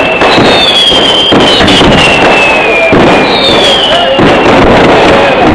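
Vedikettu fireworks barrage: a dense, continuous run of firecracker bangs with no let-up. Shrill whistles falling in pitch recur about every second and a half.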